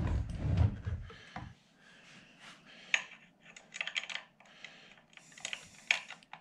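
Quilting-frame parts and tools being handled during assembly: a low thump and rumble over the first second and a half, then a scatter of light metallic clicks and taps.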